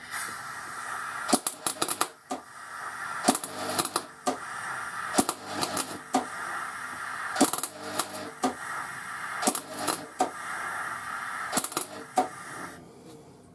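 Electric welding arc crackling and hissing steadily with irregular sharp pops while spot welds are laid on to build up a worn lathe half nut; it cuts off abruptly near the end.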